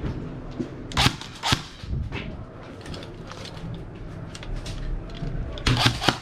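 Airsoft guns firing in an indoor close-quarters building: two loud sharp cracks about a second in, half a second apart, a few fainter shots, then a quick cluster of shots near the end.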